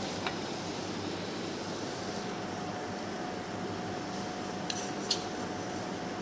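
Steady hiss of a gas burner and water heating in an aluminium saucepan, with a faint steady whine. A few light metallic clinks come near the start and about five seconds in.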